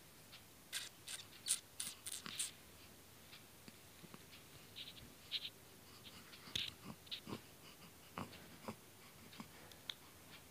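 Faint handling and rustling noise: a quick run of about six scratchy clicks about a second in, then scattered soft ticks and rustles.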